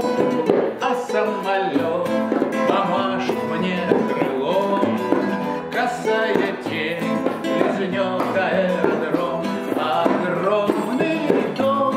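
Nylon-string classical guitar strummed and picked, playing a passage between verses of a song; a man's voice sings over it near the end.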